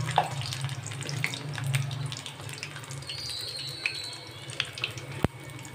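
Batter-coated green chillies deep-frying in hot oil, a steady sizzle with fine crackling and pops. One sharp click near the end.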